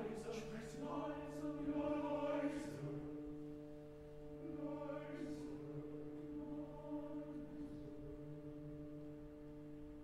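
Male opera chorus singing softly over held orchestral chords, the voices thinning out after about three seconds while the chords sustain.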